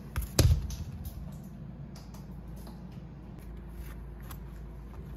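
A metal rocker arm assembly set down with a thump on a cardboard-covered workbench about half a second in, followed by faint clicks of rocker arms and washers being handled, over a steady low hum.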